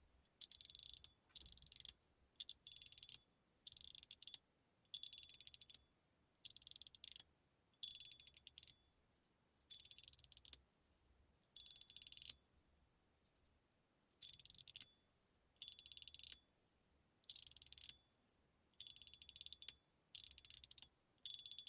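A WJ Creation fidget slider being slid over and over: the two small balls inside roll along its inner tracks with a quick rattle, and each slide ends in a click as they hit the end. About fifteen strokes come at uneven intervals of one to two seconds, with the slider tuned for a good sound.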